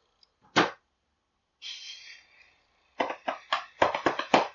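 A single sharp click, then a short breathy exhale like a sigh, then a quick irregular run of about eight sharp clicks and taps near the end.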